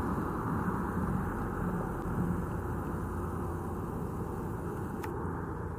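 Steady rumble of distant engine noise, easing slightly over a few seconds.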